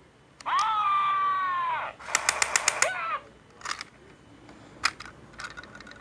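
Toy Story dinosaur toy's electronic sound effect from its small speaker, one held tone of about a second and a half that dips at the end, followed by a quick run of sharp clicks, a short rising chirp, and scattered clicks and ticks.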